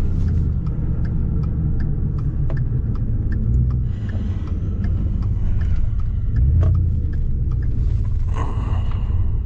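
Ford F-150 SVT Raptor driving, heard from inside the cab: steady engine and road rumble with a turn signal ticking about three times a second.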